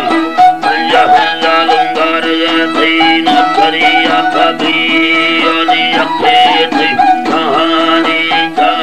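Instrumental passage of Balochi folk music: a plucked-string melody played over a steady drone, with quick rhythmic plucks.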